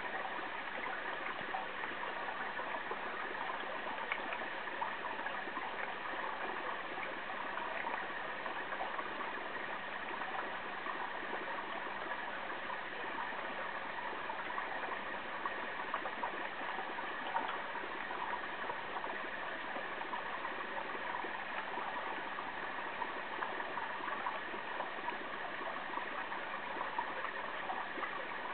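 Water running steadily through and out of a PVC pipe, a continuous trickling rush with faint scattered drips.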